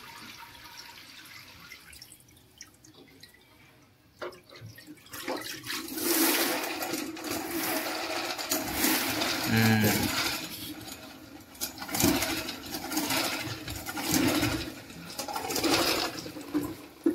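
Water dripping from a soaked string mop head, then, from about five seconds in, the mop head spinning in a spin bucket's plastic wringer basket as the pole is pressed: water swishes and sprays off it in a rushing hiss that swells and eases in several surges as the head is wrung dry.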